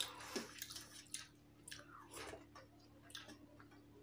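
Faint wet mouth sounds of someone chewing a mouthful of rice and curry eaten by hand, with soft squishing of fingers mixing rice on a steel plate. The sounds come as scattered short smacks and clicks.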